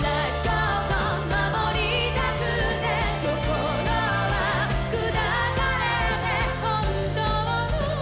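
Anime ending theme song: a Japanese pop song with a sung lead vocal, its held notes wavering, over a band with a steady bass line.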